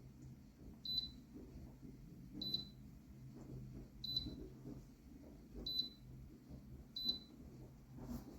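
Electronic beeping from the humidifier's control panel: five short high beeps about a second and a half apart, over a low steady hum.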